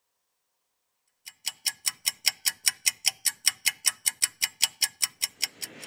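Clock-ticking sound effect: a fast, even run of sharp ticks, about five or six a second, starting about a second in and stopping shortly before the end. It goes with an on-screen stopwatch and marks a three-minute wait while the adhesive soaks.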